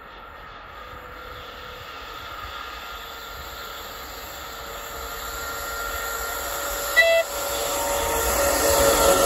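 Electric freight locomotive approaching with its train, the sound of motors and wheels growing steadily louder. About seven seconds in it gives one short horn toot.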